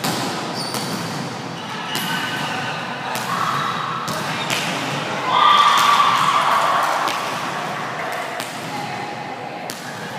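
Volleyball rally in a large gym hall: sharp, echoing smacks of the ball off players' arms and hands, with high, held calls from the players, loudest a little past halfway.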